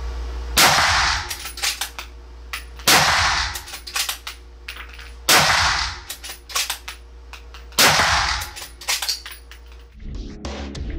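Four shots from a Howa 1500 HCR bolt-action rifle in 6.5 Creedmoor, about two and a half seconds apart, each echoing in an indoor range, with the bolt worked between shots. Music starts near the end.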